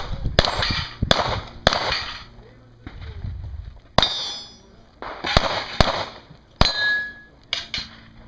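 Smith & Wesson M&P pistol firing about nine sharp shots, some in quick pairs, with short pauses between groups. A few shots are followed by a brief ring.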